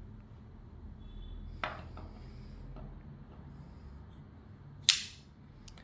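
Folding knives being handled: a soft click about a second and a half in and a sharp, louder click near the end, over a faint low room hum.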